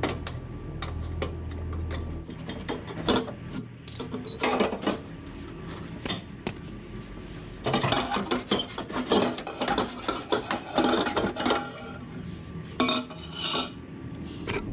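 Metal exhaust pipe clanking and scraping as it is twisted and pulled loose from under the car, the Focus ST's old rear exhaust section coming off, busiest for a few seconds in the middle.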